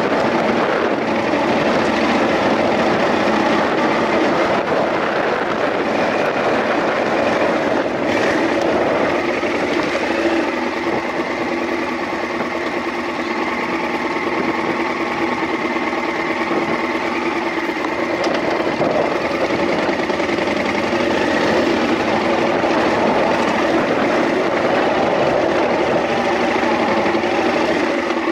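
Off-road motorcycle engine running steadily as it rides along a rough gravel track.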